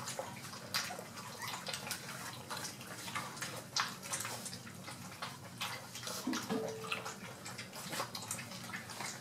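A litter of four-week-old golden retriever puppies eating together from a shared metal pan: a busy, irregular stream of wet lapping and smacking with clicks of teeth and food against the metal. One short squeak sounds a little past the middle.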